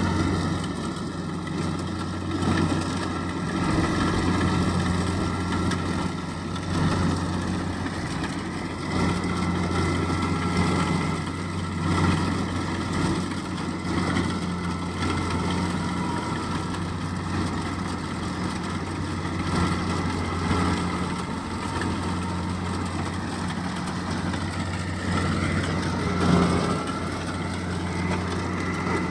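Kubota DC-70 combine harvester's diesel engine running steadily, with a constant low hum and small swells in level.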